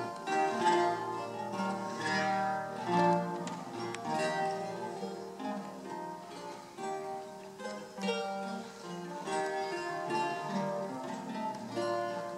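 Solo eight-course Renaissance lute built by Joel van Lennep, played fingerstyle: plucked chords and running melodic lines in Elizabethan polyphonic style, notes ringing into one another.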